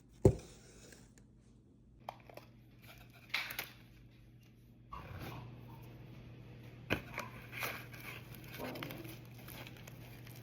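Food packaging being handled before eating: a sharp knock just after the start, then scattered crinkling, rustling and clicks of paper or plastic.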